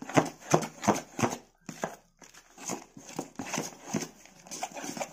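A hand beating thick urad dal bonda batter in a steel bowl: wet slapping strokes at about three a second, with a short pause about a second and a half in.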